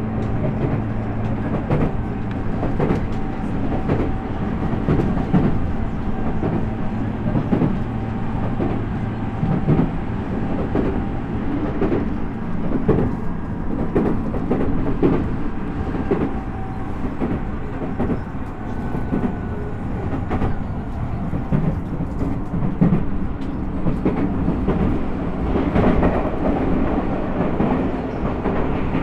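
Tokyu 5050 series 4000-subseries electric train running at speed, heard from inside the car: continuous rumbling of wheels on rail with repeated clicks over rail joints. A low steady hum under the rumble drops away about a third of the way in.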